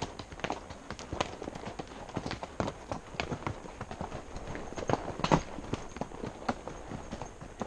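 Hoofbeats of a ridden horse on a rocky dirt trail: irregular clip-clopping, several strikes a second, one louder strike about five seconds in.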